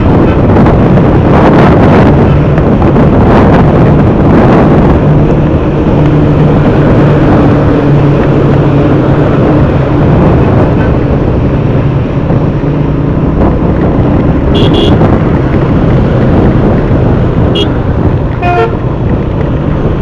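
Motorcycle riding through traffic on a wet road: loud, steady wind and road noise with the bike's engine humming underneath. Short vehicle horn toots sound several times in the last few seconds.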